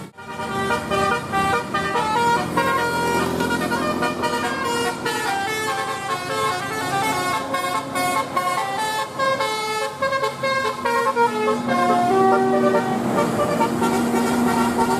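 Bus 'telolet' horn, a multi-tone air horn playing a quick melody of short, stepping notes, with a longer low note held near the end.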